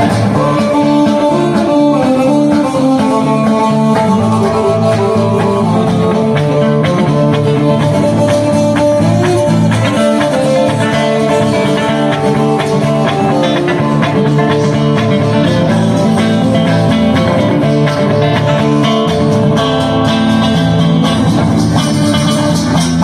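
Live acoustic blues-country instrumental break: acoustic guitars picking quick runs of notes over a bass line, with no singing.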